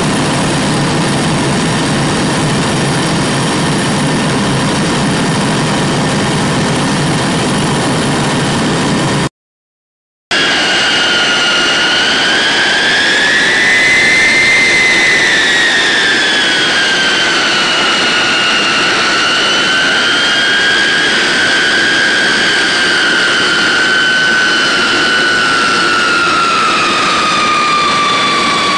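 A steady, loud low mechanical rumble, then a one-second break. After it comes the whine of the B-52 Stratofortress's TF33 turbofan engines as the bomber taxis, with two whistling tones that rise a little and then slowly fall.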